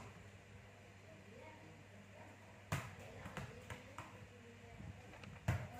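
Soccer ball being juggled and bouncing on a tiled floor: a few separate, irregular thuds, the first about two and a half seconds in and a strong one near the end.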